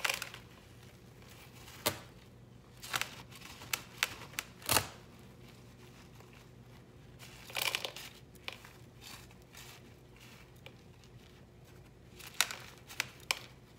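Gloved hands pressing and scraping gritty potting mix with perlite down around a plant in a ceramic pot. The sound is a scattering of short rustles and scrapes with quiet gaps between them, the loudest a little under five seconds in.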